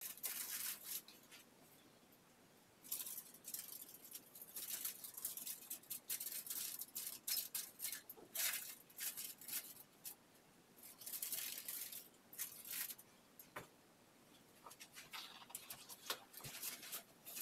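Faint, scratchy rustling and crinkling in irregular spells, with a few sharp clicks, as gloved hands handle aluminium foil around a lace hair closure.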